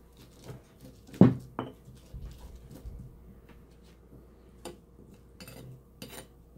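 Stone pestle grinding and knocking against a volcanic-stone molcajete as guaje is mashed: a sharp knock just over a second in and another soon after, then lighter scattered clicks. A metal spoon clinks against a ceramic plate.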